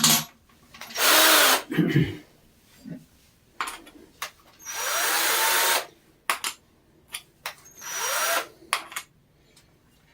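Cordless drill with a hole saw fitted, run in three short bursts, its motor whine rising and falling each time. Clicks and knocks come between the bursts.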